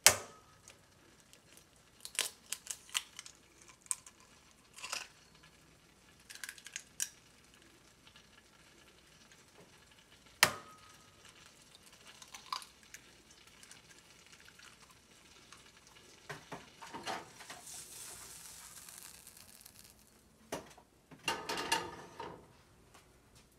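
Eggs being cracked on the rim of a ceramic mixing bowl: scattered sharp taps and clicks of shell on ceramic, with clatter of kitchen things between and a soft hiss for a couple of seconds after the middle.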